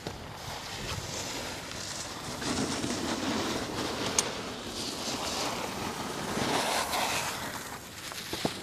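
Wind rushing over a camcorder microphone, swelling and easing, with a single sharp click about four seconds in.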